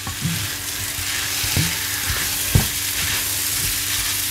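Raw prawns frying in an onion-tomato masala in a non-stick pan, sizzling steadily while a wooden spatula stirs and scrapes them. There are a few short knocks of the spatula against the pan, the loudest about two and a half seconds in.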